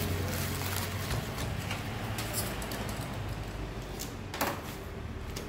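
Plastic packaging crinkling and tearing as it is pulled off a small hand tool, then a single sharp knock about four and a half seconds in.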